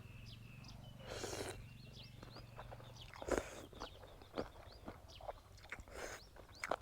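Eating sounds close up: chewing and biting, with a few short, louder noisy bursts. Small birds chirp over and over in the background, in short rising calls.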